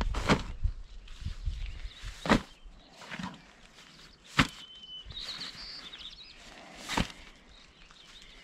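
Packed camping gear in nylon stuff sacks being handled and set down: rustling and rubbing with several sharp knocks, the loudest about two seconds in. A brief high chirp comes about five seconds in.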